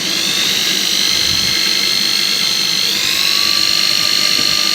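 Handheld electric drill running under load with a high whine, drilling a small pilot hole into a rusted, cut-off bolt in a pressure cooker's handle bracket. It speeds up at the start and rises in pitch again about three seconds in.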